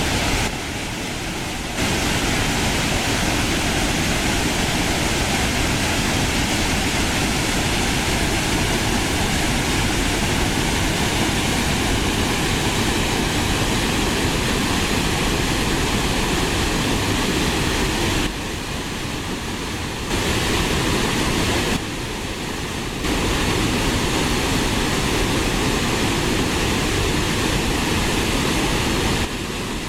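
Waterfall rushing, a steady roar of falling water. Its level drops abruptly for a second or two several times, about a second in, around two-thirds of the way through and near the end.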